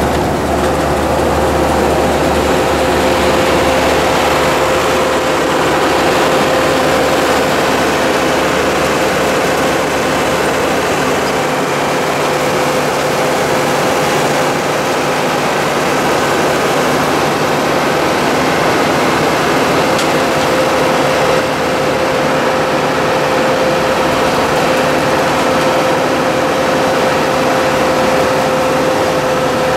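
Side-mount pull-behind blueberry harvester working along a row while a compact tractor tows it. The engine and the harvesting machinery run together as a steady mechanical din. A steady whine rides on top and drops out for a few seconds past the middle.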